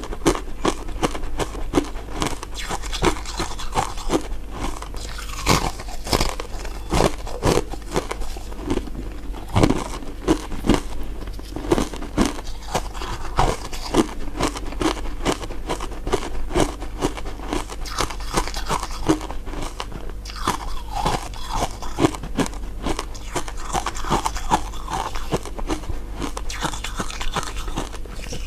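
Close-up crunching and chewing of crisp, translucent crystal ice dessert pieces: a continuous run of sharp cracking bites and crackly chewing.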